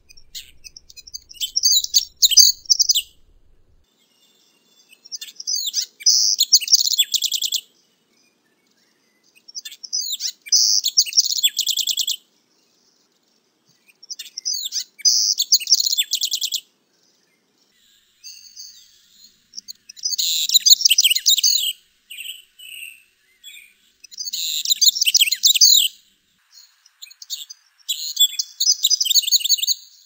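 Brown-throated wren singing: repeated song phrases of rapid, high trills and warbles, each about two to three seconds long, with short pauses between them.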